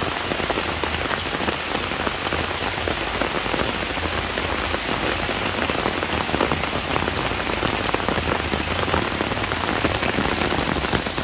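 Heavy tropical rain pouring down onto a flooded dirt yard and the trees around it: a steady, dense patter of drops.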